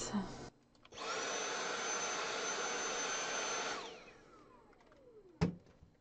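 Dyson V7 Animal cordless stick vacuum switched on by its trigger, running steadily with a high whine for about three seconds while vacuuming a fabric cat bed. It is then released and spins down with a falling whine. A single knock follows near the end.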